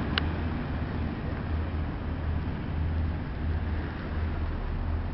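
Passenger hovercraft running at speed over the water as it moves away, its engines and twin ducted propellers making a low pulsing drone with a rushing hiss that slowly fades. There is one brief tick just after the start.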